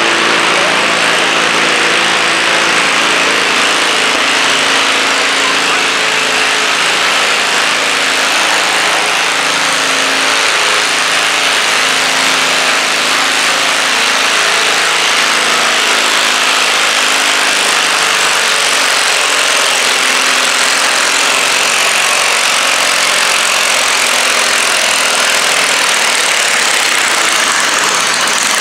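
Small garden tractor engine running steadily under load while dragging a stoneboat sled across a dirt floor, its engine note weakening past the middle, under a dense steady wash of higher-pitched noise.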